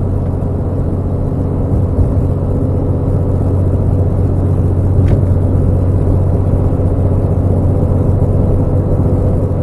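Steady drone of a truck's engine and tyres heard from inside the cab while cruising on the highway.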